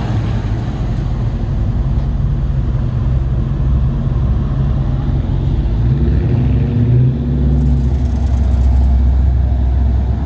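Cars rolling slowly past in street traffic: a steady low engine rumble, rising slightly in pitch about two-thirds of the way through, with no hard revving.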